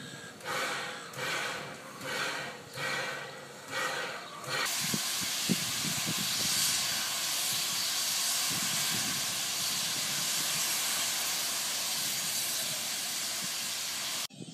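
Steam locomotive letting off steam: about five rhythmic chuffs, then a steady hiss of escaping steam from about four and a half seconds in, which cuts off suddenly near the end.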